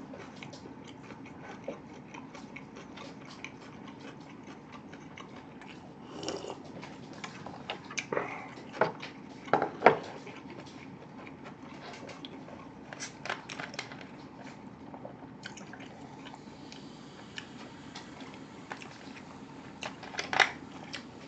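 A person chewing food close to the microphone, with scattered small mouth clicks. Sharper knocks from a glass and tableware come in a cluster around the middle and again near the end.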